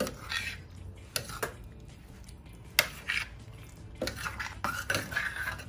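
Metal spoon stirring a chicken curry in a stainless steel pan: short scrapes and several sharp clinks of the spoon against the pan.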